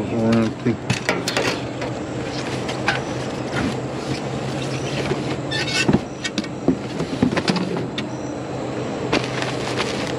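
Cardboard boxes and a plastic trash bag being shifted and rummaged through in a dumpster, with scattered knocks and rustles, over a steady low hum.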